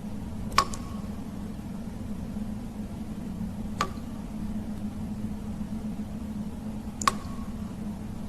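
Water drops falling in a cave: three single drips about three seconds apart, each a sharp plink with a short ringing tail, over a steady low drone.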